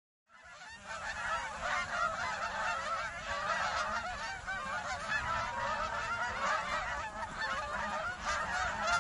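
A large flock of Canada geese honking, many calls overlapping continuously; it fades in within the first second.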